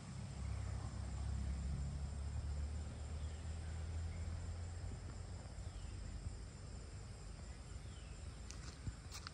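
Outdoor nature ambience: a low rumble that fades out about halfway, under a faint steady high insect drone and a few short falling bird chirps, with a few clicks near the end.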